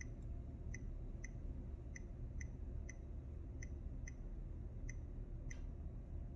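Nest Learning Thermostat's control ring being turned step by step, giving a short, high click at each step as it scrolls through the settings menu: about a dozen clicks at an uneven pace of roughly two a second. A low steady hum lies underneath.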